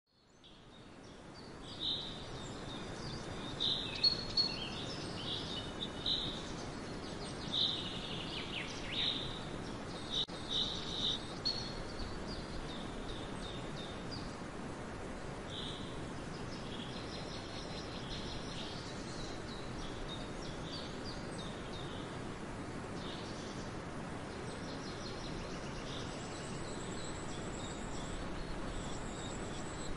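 Outdoor ambience: a steady wash of background noise that fades in over the first couple of seconds, with short bird chirps and calls, frequent in the first half and sparser later.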